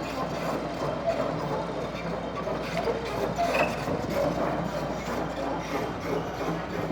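Continuous irregular mechanical clatter: many small clicks and knocks.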